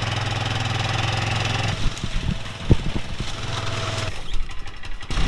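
Arctic Cat ATV engine running at a steady speed while towing a loaded sled. About two seconds in, the steady engine note drops away, leaving scattered knocks and rattles.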